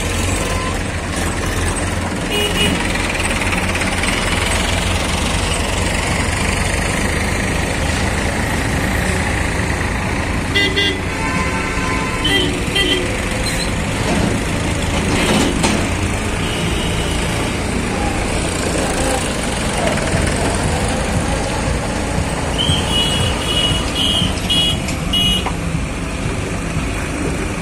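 Diesel engines of tractors and a lorry running as they drive past, a steady rumble throughout. A vehicle horn sounds about eleven seconds in, and near the end there is a quick series of short horn toots.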